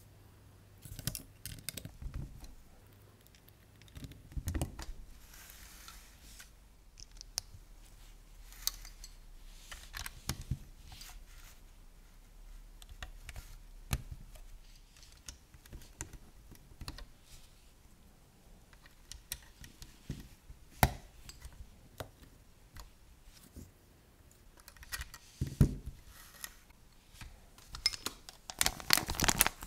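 Plastic LEGO bricks clicking and clacking as they are handled and pressed together, building an ambulance from transparent light-blue and white bricks. The clicks come irregularly, a few seconds apart, and grow busier near the end.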